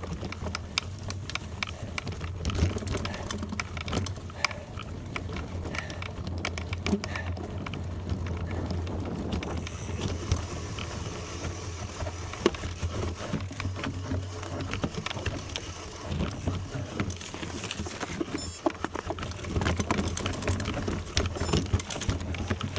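Bicycle tyres rolling over a gravel road, with a dense stream of small clicks and rattles over a steady low rumble.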